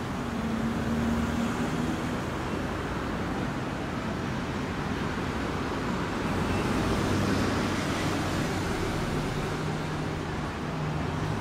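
City road traffic: cars and vans passing and idling at an intersection, a steady wash of engine and tyre noise. A low engine hum stands out for the first couple of seconds and again near the end.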